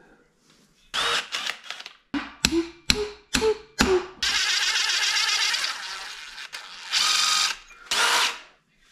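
Cordless power driver running in short trigger bursts that rise in pitch, then a steady run of a couple of seconds, then two more short bursts near the end. It is backing out bolts to take the engine out of a Honda Z50 minibike.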